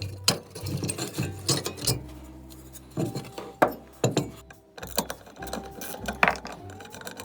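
Uneven sharp metallic clicks, knocks and clinks of tools and small parts being worked on a Shmel-2 primus stove, some of them ringing briefly.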